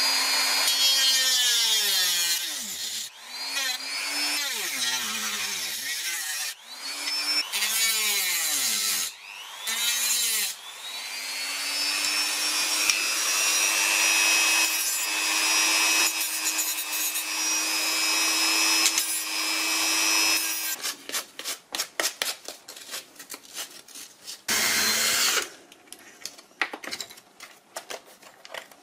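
Dremel rotary tool with a cut-off disc cutting a carbon-fibre plate: a high motor whine whose pitch sags each time the disc bites into the plate and recovers as the cut eases, then runs steady for several seconds. It stops about 20 seconds in, and a quick series of clicks and a brief mechanical buzz follow.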